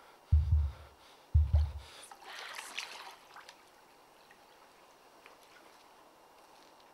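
Two deep, heavy thumps about a second apart, a heartbeat-like bass pulse in a music score, that die away; then, about two seconds in, a brief splash of water, followed by faint outdoor background hiss.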